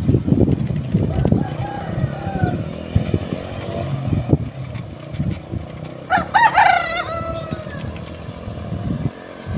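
Rooster crowing once, about six seconds in, a strong call that falls away at the end, over a steady low rumble of wind buffeting the microphone of a moving bicycle.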